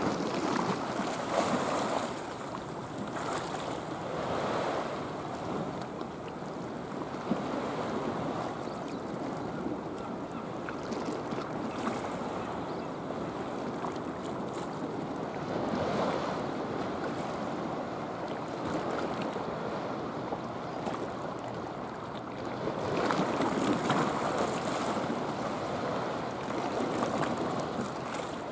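Sea water lapping and sloshing, an even rush of noise that swells louder now and then.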